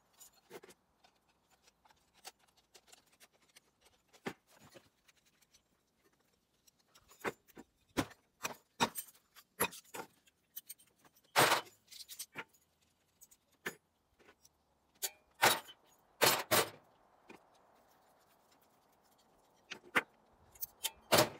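Small metal lamp parts and hand tools clicking and clinking as a table lamp is taken apart by hand and pieces are set down on a plywood table: scattered light clicks, busier in the second half, with a few louder knocks.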